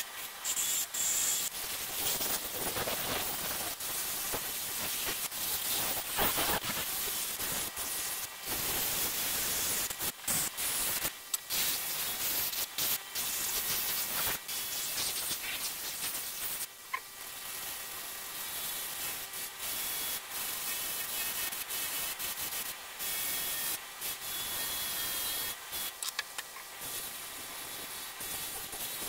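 Scratchy abrasive hiss of rusty metal parts being scrubbed or sanded clean, broken by frequent short pauses.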